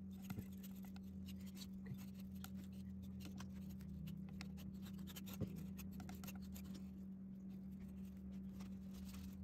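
Faint scraping and ticking of a metal putty knife spreading a paste of glue and walnut sawdust over a walnut board, packing it into gaps around an inlay, with one slightly louder tick about five and a half seconds in. A steady low hum runs underneath.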